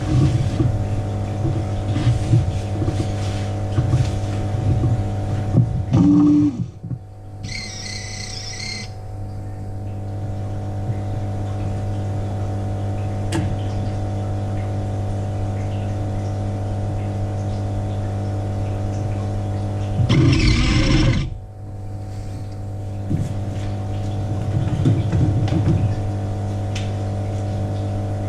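Steady low hum with several overtones from the fish tank's water-circulation equipment. Uneven rumbling runs through the first few seconds, a brief hiss comes about eight seconds in, and a louder noisy burst of about a second and a half comes about twenty seconds in.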